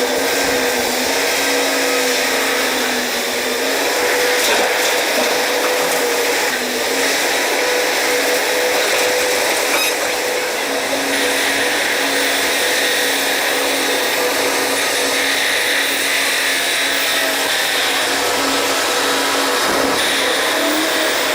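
A machine running steadily with a constant whine over a hissing noise, without a break.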